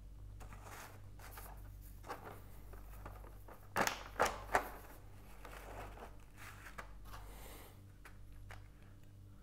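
Clear plastic blister packaging crinkling and clicking as it is handled and lifted, with a few louder crackles about four seconds in, over a faint low hum.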